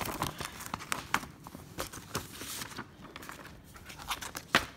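Plastic DVD case and its paper cover insert being handled: rustling and crinkling with scattered clicks, busiest in the first second and a half, then a single sharp click near the end.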